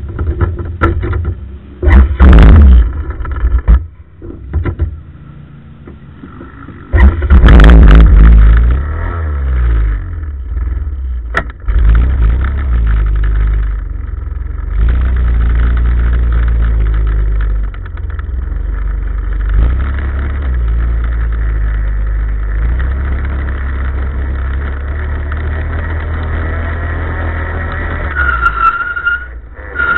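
Off-road motor vehicle engine running, with two loud surges of engine noise early on. From about halfway it runs steadily, then rises in pitch near the end as the vehicle drives off along the dirt track.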